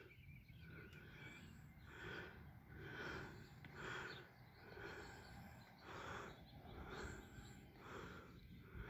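Near silence, with faint soft sounds about once a second.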